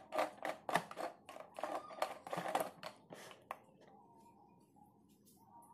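Plastic screw lid of an insulated thermos jug of hot tea being twisted shut by hand: a quick run of clicks and scrapes that stops about three and a half seconds in, leaving only a faint steady hum.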